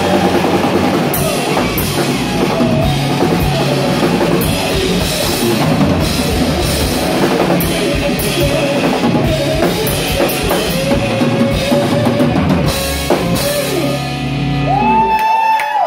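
Live rock band playing the closing bars of a song: a full drum kit and distorted electric guitars with singing over them. The band stops about a second before the end, leaving a single high guitar note ringing.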